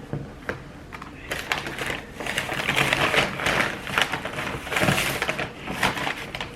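Fast-food paper packaging crinkling and rustling as it is handled, with a couple of sharp clicks at the start and a dense crackle from a little over a second in to near the end.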